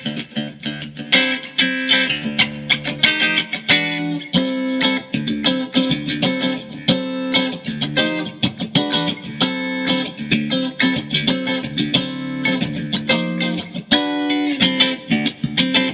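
Mexican-made Fender Stratocaster electric guitar, freshly set up and tuned to drop D, played solo in a continuous run of quickly picked notes and riffs.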